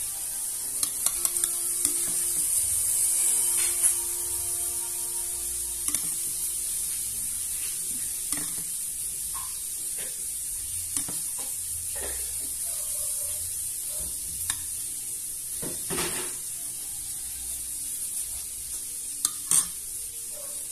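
Metal spoon clinking and scraping against a plastic bowl and a plate as sauce is scooped and spooned over fried food, in scattered taps and short scrapes, the loudest near the end. A steady high hiss runs underneath.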